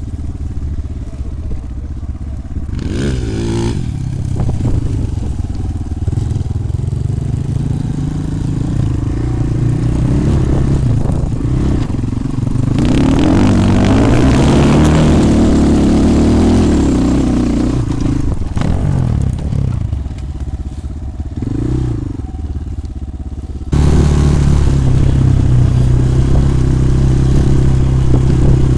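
250 cc enduro motorcycle engine running, its pitch rising and falling as the throttle is worked, loudest around the middle. Near the end it switches suddenly to a louder, steady engine note.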